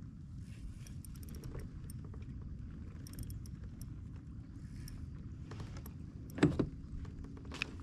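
Fishing reel being cranked as a hooked bass is brought to the kayak, light mechanical clicking over a steady low rumble, with one brief louder sound about six and a half seconds in.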